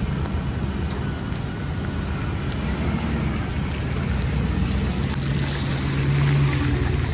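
Chevy Express van driving on a wet road in the rain: a steady engine hum under the hiss and spray of tyres on wet pavement, the engine note growing louder about five seconds in.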